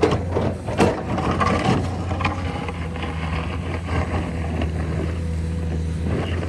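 Heavy road-construction machinery's diesel engine running steadily with a constant low drone, with a few sharp clanks of metal in the first couple of seconds.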